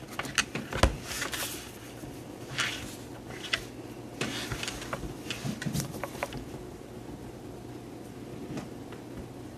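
Tarot cards being handled and laid down on a wooden table: a scatter of soft taps and card slaps through the first six seconds or so, then quiet room tone.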